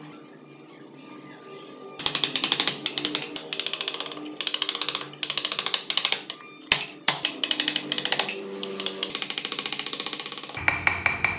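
Chisel cutting into a wooden block in rapid, chattering strokes. The strokes come in bursts of about a second, with short pauses between, starting about two seconds in.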